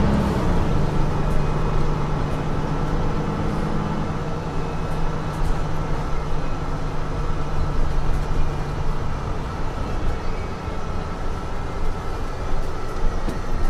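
Mercedes-Benz Citaro C2 city bus on the move: a steady low engine hum over rolling road noise, with a thin steady whine above. The engine note fades away about eight seconds in, leaving the rumble of the bus rolling along.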